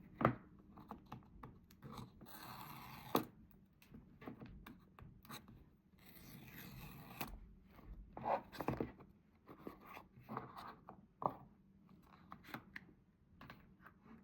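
AirPods 4 packaging being opened by hand: paper and cardboard scraping and tearing, with scattered clicks and taps, including two longer scraping stretches of about a second each.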